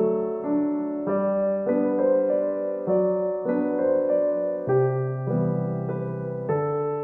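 Background music: a soft electric piano playing a gentle melody over sustained chords, with notes changing about every half second.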